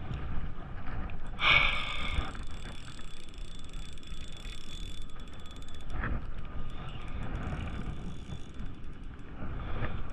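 Fishing reel clicking and ratcheting as line is worked against a big fish holed up in the jetty rocks, with a louder burst of clicks about a second and a half in and a single sharp click around six seconds.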